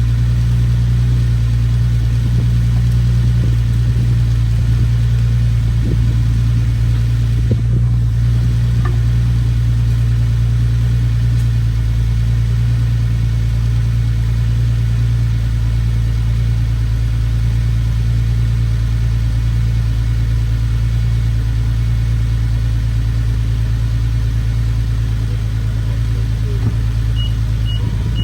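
Infiniti G37's 3.7 L VQ37VHR V6, fitted with Stillen Gen 3 long-tube intakes and K&N filters, idling steadily just after its first start. The idle sits raised, which the owner puts down to the cold start, or perhaps the new intakes.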